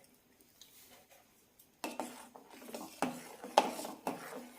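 A spoon stirring payasam in a cooking pan, clinking against the pan about every half second, to dissolve freshly added sugar. It starts a little under two seconds in, after a near-silent start.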